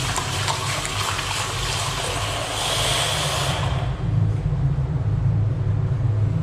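Street traffic: a vehicle engine running with a rush of passing noise that dies away about four seconds in.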